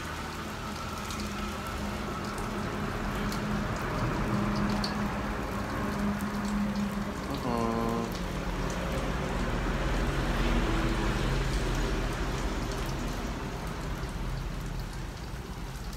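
Mushrooms frying in hot oil in a wok on a gas burner: a steady crackling sizzle with scattered small pops.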